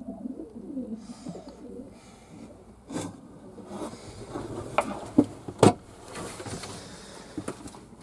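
Fantail pigeons cooing, low wavering coos for the first couple of seconds, then a few sharp knocks and some rustling.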